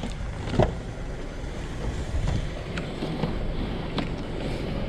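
A car running, a steady low rumble, with a sharp knock about half a second in and another about four seconds in.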